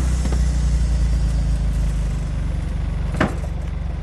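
Volkswagen Golf hatchback's engine idling steadily, with a single short knock about three seconds in.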